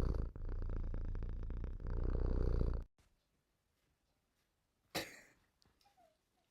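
A cat purring loud and close to the microphone, a fast low rumble that cuts off suddenly about three seconds in. A single sharp knock follows about two seconds later.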